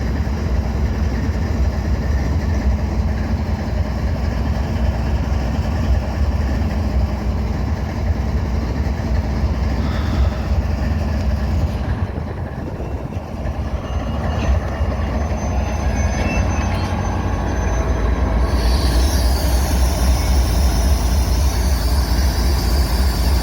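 Stopped, fully loaded coal train with its diesel locomotive idling in a steady low rumble. About three-quarters of the way through, a high squeal comes in, typical of the heavy train starting to creep on its handbrakes after the air brakes were released, showing the handbrakes are not enough to hold it.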